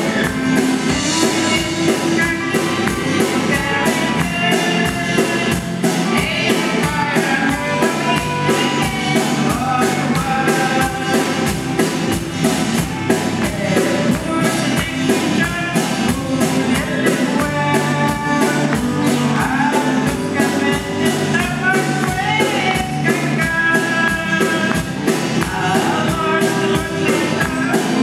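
Live gospel band: two women singing into microphones over a strummed acoustic guitar, an electric guitar and a drum kit keeping a steady beat.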